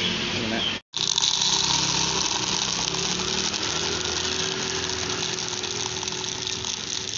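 Blue NPK fertiliser granules pouring from a plastic bag into a plastic cup, a dense, steady rattling hiss that starts about a second in, after a brief cut. A steady low hum runs underneath.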